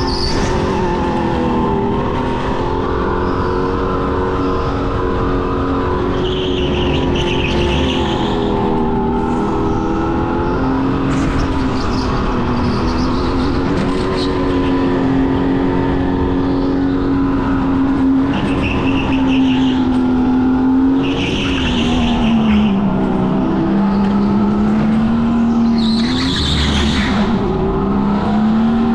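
Racing go-kart lapping a track: its motor drones steadily, the pitch shifting with speed and dipping about 23 s in. Its tires squeal briefly through corners, about four times (near 7, 19, 22 and 26 s).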